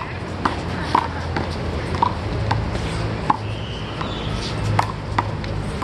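Small rubber handball being struck by bare hands and smacking off the wall and court during a rally: a string of short, sharp smacks at irregular intervals, about one every half second to second.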